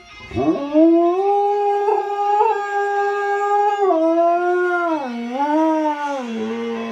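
Alaskan malamute howling ('wooing') along to music. It is one long howl that swoops up at the start and holds a steady pitch for about three seconds, then steps down and wavers up and down in pitch before dropping lower near the end.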